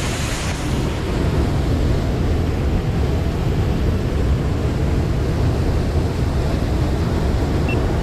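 Monsoon-swollen waterfall and river in fast flow: a steady, loud rush of water, heaviest in the low rumble.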